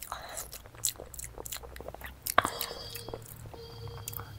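Close-miked mouth sounds of a person eating: wet chewing and biting with many small crisp clicks, one sharper crunch a little past halfway.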